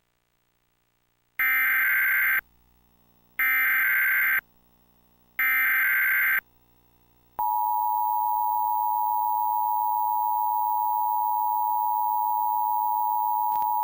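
Emergency Alert System activation. After about a second of silence come three short bursts of SAME header data, each about a second long and two seconds apart. About seven seconds in, the steady two-tone EAS attention signal starts and holds, announcing a tornado warning.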